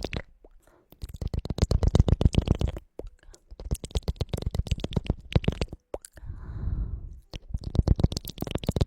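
Close-miked ASMR ear-cleaning sounds: rapid, crackling clicks in bursts of one to three seconds, with a short soft rustle about six seconds in.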